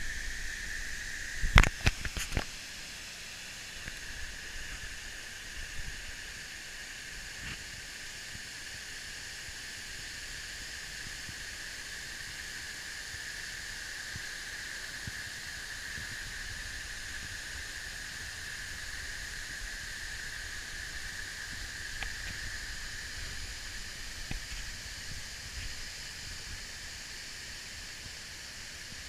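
Waterfall rushing as a steady hiss, with a steady high-pitched tone running over it. A few sharp knocks sound about two seconds in.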